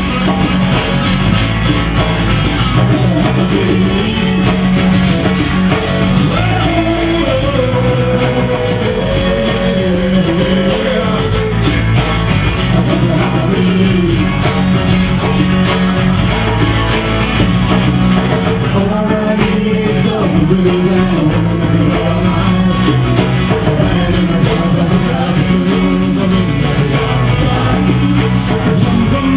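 A rock band playing live: electric guitars and bass over drums, with a singer's voice in places.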